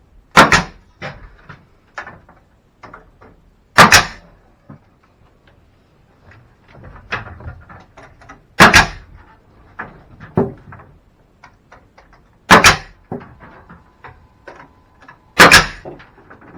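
Heavy knocks and bangs from fitting the attic ladder in its frame: five loud doubled strikes about four seconds apart, with lighter knocks and taps between.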